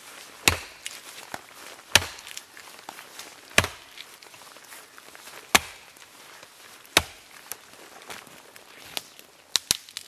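Small axe chopping into wood: five sharp blows spaced about one and a half to two seconds apart, then a few lighter knocks and clicks near the end.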